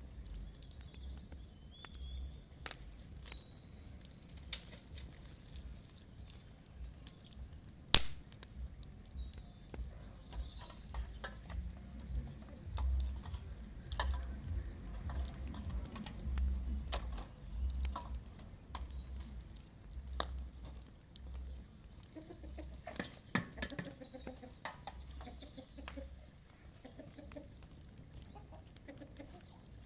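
Chickens clucking, with scattered sharp clicks and pops from the crackling wood fire, one loud crack about eight seconds in. A low wind rumble runs underneath on the microphone.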